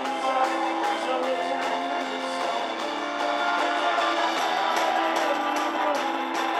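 Live rock band playing: electric guitars strumming over bass and a steady drumbeat, with a man singing.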